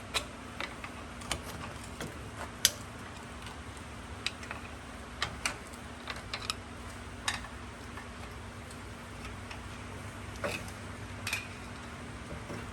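Irregular metal clicks and clinks as a front brake caliper on a 1988 Ford Bronco II is wiggled and worked off the rotor, over a steady low hum.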